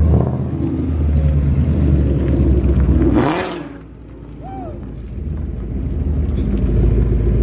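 Ford Mustang GT's 5.0 Coyote V8 with its exhaust opened up, rumbling as the car pulls away. A short sharp burst of throttle comes about three seconds in, then the sound falls away as the car drives off, and an engine rumble builds again near the end.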